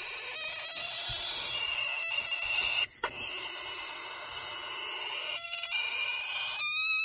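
Medium cockatoo chick giving raspy, hissing begging calls with its beak gaping, asking to be fed. Two long stretches with a short break about three seconds in, turning into a clearer, higher squawk near the end.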